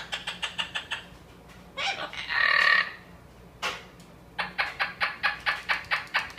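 A pet parrot making fast runs of clucking clicks, about seven a second, with a short harsh squawk between the two runs.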